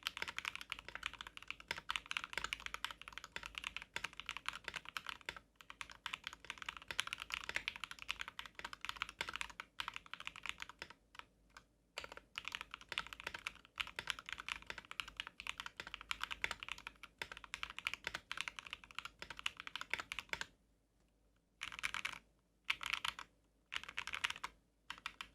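Custom 60% mechanical keyboard with lubed Jwick Black linear switches on a carbon fiber plate in a resin case, typed on fast and continuously. The typing stops about twenty seconds in, followed by a few short separate bursts of keystrokes near the end.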